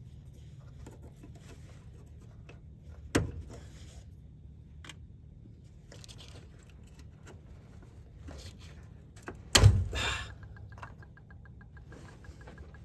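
Hands working the fuel filter and its quick-disconnect line fittings on a 1996 Ford Ranger: scattered small clicks and rattles, a sharp click about three seconds in and a loud clack near ten seconds. A fast, even ticking follows near the end.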